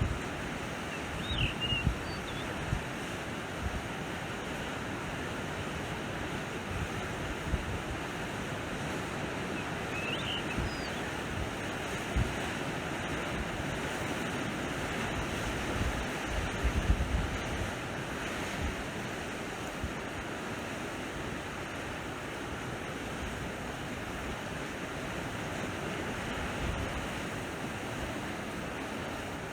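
Sea waves washing steadily onto the shore, with wind buffeting the microphone in a few low gusts. A couple of faint, short high chirps come through twice.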